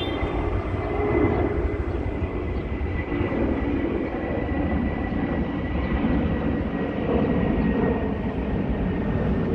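Steady low rumble with a faint, steady high tone above it.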